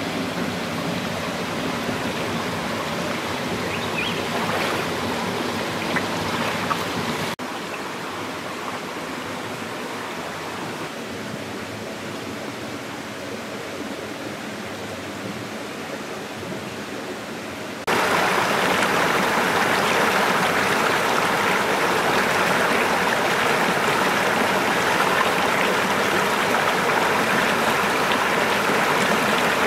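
Shallow rocky stream flowing and splashing over stones as a steady rush of water. It drops abruptly to a softer flow about a quarter of the way in, then jumps louder and brighter a little past halfway, where the water pours white through a gap between boulders.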